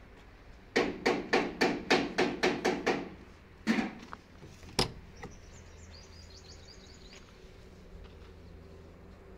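A quick run of about nine sharp knocks, about four a second, each with a short ring, followed by two more single knocks a second or so apart.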